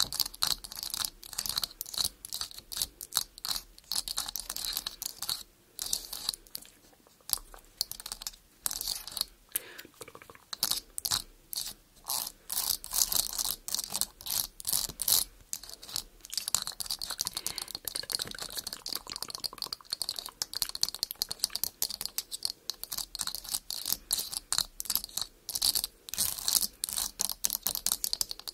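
Long fingernails tapping and scratching on a camera lens: fast, irregular crisp clicks and scrapes with a few short pauses.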